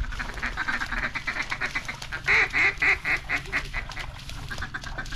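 Duck quacking: a rapid chatter of short notes, then a loud, evenly spaced run of quacks about two seconds in that tapers off.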